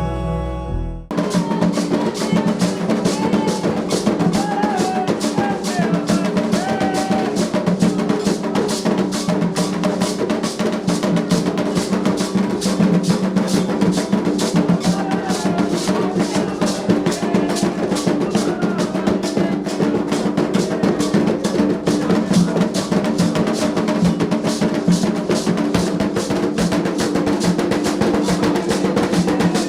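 Softer sustained music cuts off about a second in, and Candomblé atabaque hand drums take over with a fast, dense, steady rhythm.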